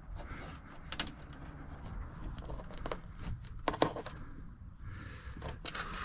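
A few light clicks over a faint rustle: a wire and plastic interior trim being worked and tucked in by hand.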